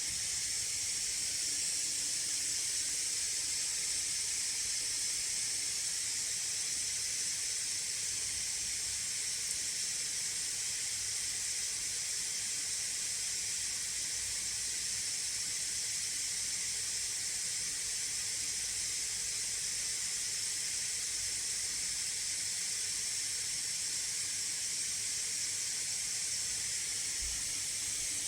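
MSI Raider GE78HX gaming laptop's cooling fans running at full speed under benchmark load, a steady high airy hiss with no coil whine.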